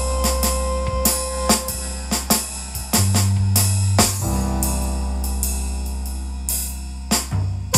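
Instrumental jazz tune with a drum kit, hi-hat and cymbal hits over a deep bass line. About halfway through the band holds one long chord, and a few drum hits come near the end.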